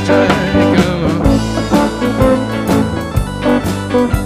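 Soundtrack music: a band playing, with pitched instrument notes over a steady drum beat of about two hits a second.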